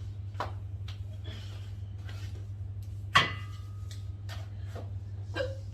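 A woman hiccuping, with short sharp catches about half a second in and near the end. A sharp knock that rings briefly sounds about three seconds in, over a steady low hum.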